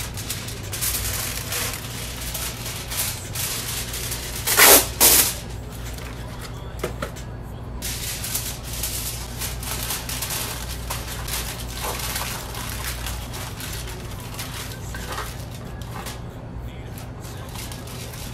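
Aluminium foil crinkling and rustling as a sheet is pulled from its box and pressed and folded into a metal baking pan, with two loud rasps about five seconds in.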